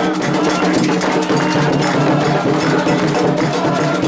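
Candomblé ritual percussion: hand drums and a struck bell playing a fast, even rhythm.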